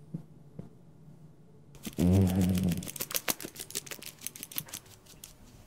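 A couple of faint single clicks, then about two seconds in a low thump and a rapid clatter of clicks and rattles lasting about three seconds before it stops.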